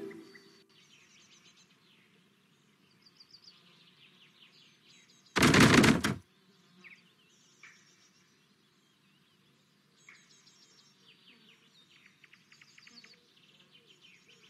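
Slot machine game's countryside background ambience: small birds chirping and tweeting over a low hum. About five and a half seconds in, a loud game sound effect cuts in for under a second.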